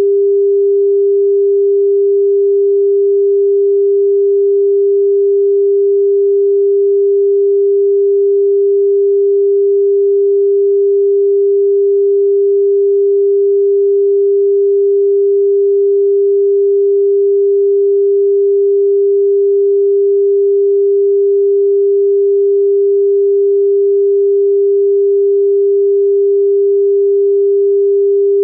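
A steady pure sine tone at about 400 Hz, with no overtones and no change in pitch or level: the 399.471 Hz frequency assigned to Jie Geng (balloonflower root).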